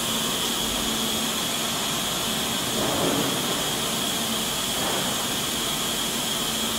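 ZM-R8650 BGA rework station's hot-air heater blowing steadily while it solders a chip in place: an even rushing hiss with a steady high-pitched whine.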